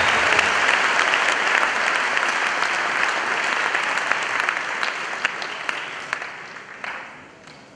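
Congregation applauding in acclamation of the Lord: dense clapping that thins out and fades away over the last two or three seconds.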